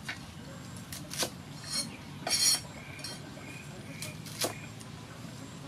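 Cleaver chopping bok choy stalks against a wooden chopping board: a handful of irregular crisp chops, the loudest about two and a half seconds in.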